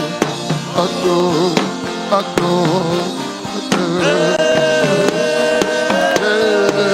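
Gospel worship music: a wavering melodic line over drum and percussion hits, with a higher held note coming in about four seconds in.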